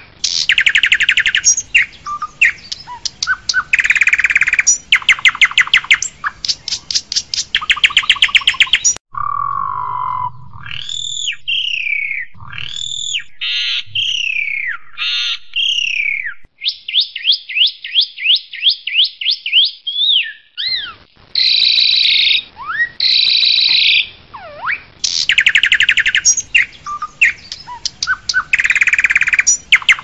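Asian pied myna (jalak suren) singing a varied full song. It opens with bursts of fast rattling chatter; about nine seconds in come loud slurred whistles and a quick run of rising notes, about five a second, before the chatter returns.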